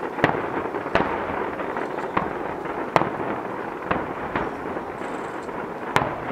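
Aerial firework shells bursting: about seven sharp bangs, roughly one a second, over a steady background noise.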